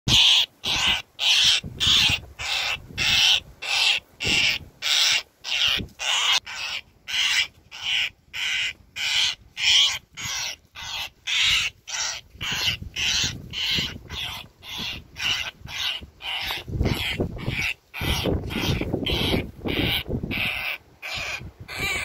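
An injured Indian roller giving harsh, rasping, crow-like calls over and over, about two a second.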